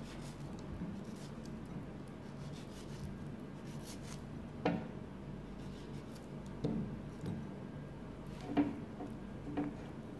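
Small kitchen knife cutting a ripe mango into small pieces over a bowl: soft rubbing and cutting sounds with a few sharp taps.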